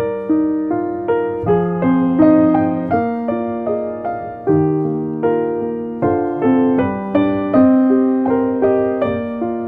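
Solo piano music: a slow, gentle piece of single notes and chords, each struck and left to fade, about one or two new notes a second.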